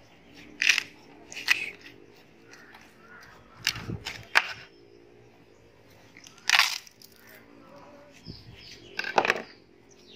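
A kitchen knife cutting through ripe watermelon: crisp cracking and crunching as the flesh and rind split, about six cuts at irregular intervals.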